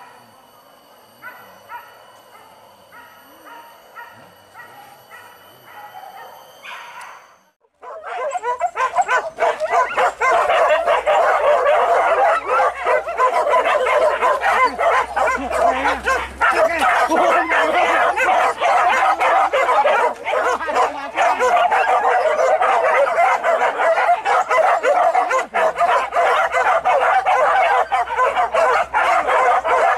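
Hunting dogs barking and yelping in a dense, loud chorus from about eight seconds in, after a sudden cut. Before that, a dog gives short yips about twice a second over faint steady high tones.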